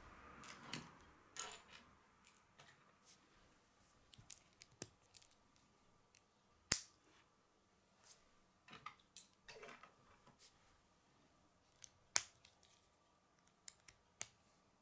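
K'nex plastic rods, connectors and gears being handled and snapped together: scattered sharp plastic clicks and snaps, two of them louder than the rest, about halfway through and near the end.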